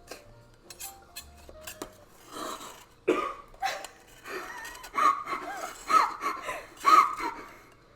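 A few light clinks of dishes, then a person laughing in short, breathy bursts from about three seconds in, getting louder toward the end.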